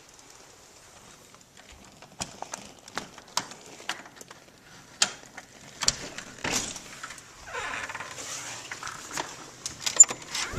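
Footsteps crunching in fresh snow: a string of short, sharp crunches at an uneven pace, with a brief scuffing patch about two-thirds of the way through.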